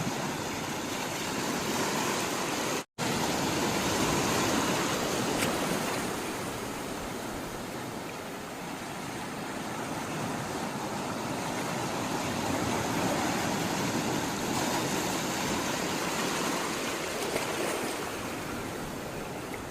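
Sea water rushing and washing, a steady hiss that swells and eases slowly. The sound drops out completely for an instant about three seconds in.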